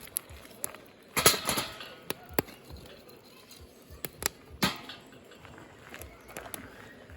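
Firewood burning in a fire pit, crackling and popping: scattered sharp pops, with a louder burst of crackles about a second in and another near the middle.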